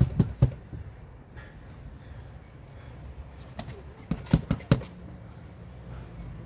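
Fists striking a hanging heavy punching bag: a few thuds just after the start, then a quick flurry of about four around four seconds in.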